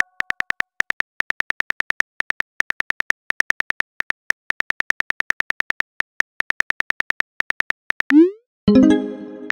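Simulated phone keyboard typing clicks from a texting-story app: a fast, uneven run of short sharp taps, several a second, as a message is typed out. Near the end come a short rising swoosh and then a bright chime of several tones, the app's message-send sound.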